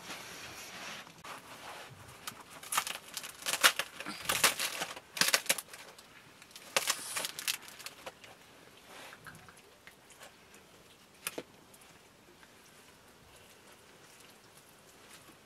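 Flatbread being torn and food handled by hand. Crackling, rustling bursts come in clusters over the first half, then it goes quiet apart from one short click.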